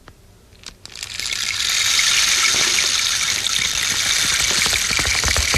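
Rain stick, a bamboo tube with beads inside, tipped so the pellets trickle through in a steady hiss that builds from about a second in, imitating gentle rain. Near the end, a quick, even run of knocks starts up over it as the horse's hoofbeats.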